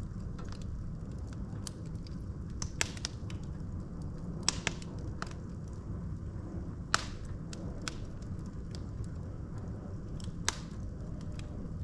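Wood logs burning in a fireplace: a steady low rumble of the flames with scattered sharp crackles and pops, the loudest pops about 3, 4.5, 7 and 10.5 seconds in.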